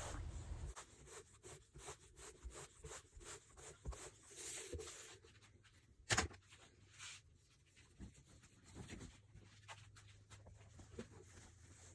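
Faint rustling and soft scuffing of quilting cotton being handled and rolled onto a corrugated plastic core, with scattered light taps and one sharper click about six seconds in.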